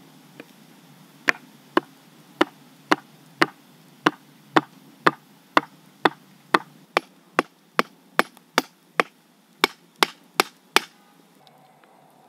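A wooden stick striking the top of a forked wooden stake, driving it into the ground: about twenty sharp, hollow wooden knocks at roughly two a second, a little faster in the second half, stopping about a second before the end.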